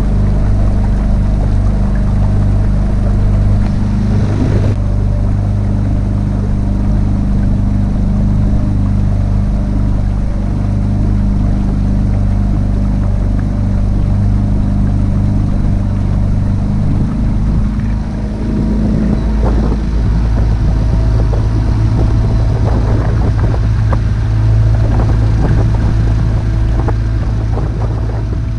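Small outboard motor running steadily under way, driving a wooden canoe through the water; its engine note shifts about two-thirds of the way through.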